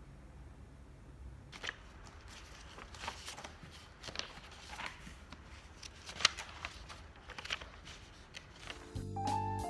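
Printed paper pages being handled and turned on a desk: a run of irregular, sharp paper rustles starting about a second and a half in.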